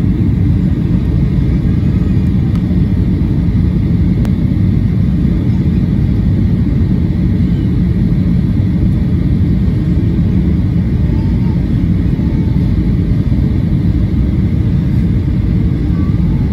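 Steady, deep cabin rumble of a Boeing 737-800 in flight, heard from a window seat just ahead of the wing: the even roar of its CFM56-7B turbofan and the airflow over the fuselage, with no change in pitch or level.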